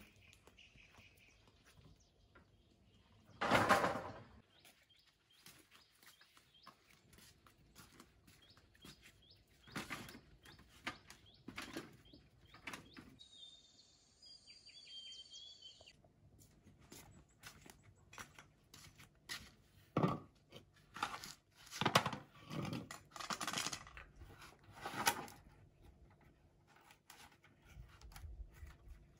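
Scattered knocks and rustles, the loudest a rustling clatter lasting about a second a few seconds in, with a cluster of sharp knocks later on. A bird chirps briefly around the middle.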